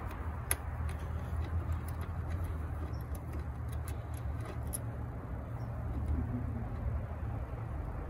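A few small metallic clicks as an Allen wrench and terminal hardware are worked on a battery terminal connector, over a steady low hum.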